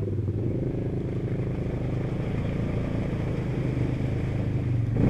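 Yamaha Grizzly ATV engine idling steadily, picking up in revs near the end.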